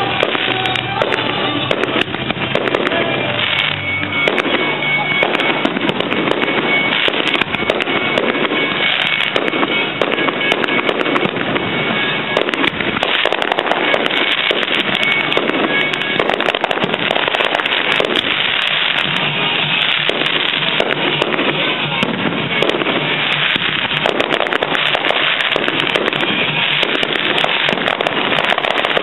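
Fireworks display: a continuous, dense run of bangs and crackling shells, with music playing along.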